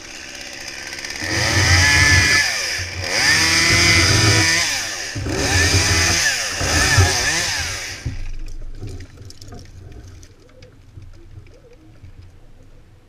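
Chainsaw revved up three times, its pitch rising and falling with each run, then throttled back about eight seconds in; faint clicks and knocks follow.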